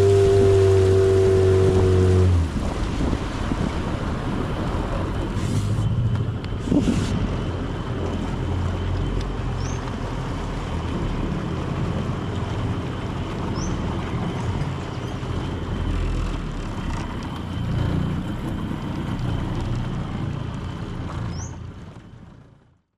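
Boat motor running with wind and water rush. Its steady engine tone stops abruptly about two seconds in, leaving rushing wind and water noise with a low rumble that fades out near the end.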